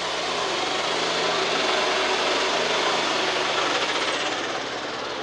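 Super stock pulling tractor's turbocharged engine at full power, pulling the sled down the track, with a high whine over the engine noise that drops away about four seconds in as the run eases.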